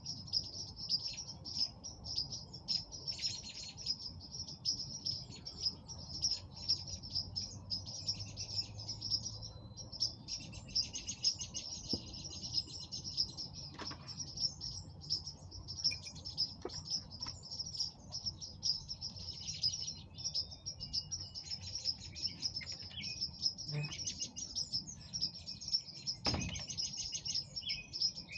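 Many birds chirping at once in a dense, continuous chorus of high calls, over a low steady background hum, with a few faint clicks.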